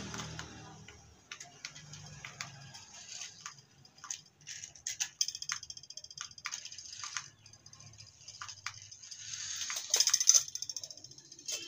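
Remote-control toy climbing vehicle driving: its small electric motors run with plastic gear and wheel rattle and many sharp clicks, in stop-start spells. The loudest rattling comes about ten seconds in.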